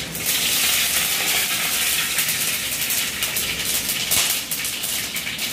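Tempering ingredients tipped into hot oil in a kadhai, sizzling and crackling. The sizzle starts suddenly and then holds steady.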